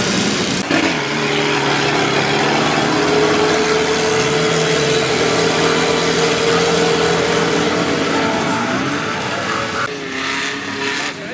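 Off-road vehicle engines revving hard while driving through mud, with one engine held at a high, steady pitch for several seconds.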